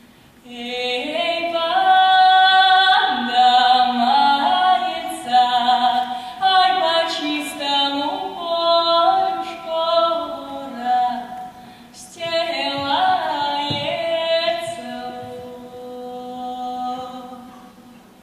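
Solo female voice singing a slow Russian folk song with accordion accompaniment. The phrases are held and sung with vibrato, with a short break about twelve seconds in, and the last phrase fades out near the end.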